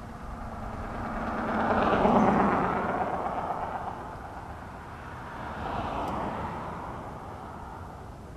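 A motor vehicle passing close by: its engine and tyre noise swell to a peak about two seconds in and fade, followed by a second, smaller swell a few seconds later.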